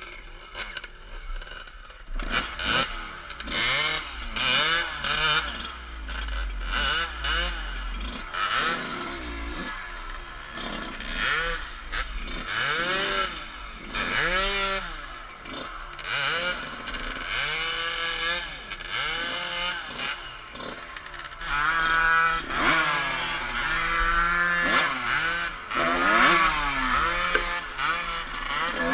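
Suzuki enduro dirt bike engine being ridden hard, revving up and falling back again and again, its pitch climbing and dropping every second or two.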